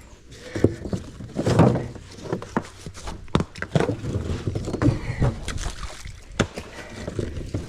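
Rocks being thrown into a muddy roadside puddle: several irregular splashes and knocks of stone, the biggest about one and a half seconds in.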